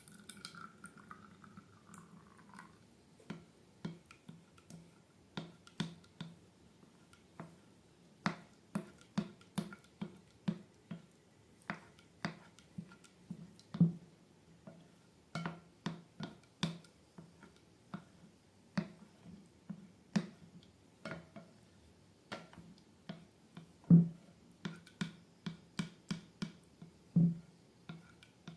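Slime being squished and worked by hand, giving a run of irregular sticky clicks and wet pops, about one to three a second.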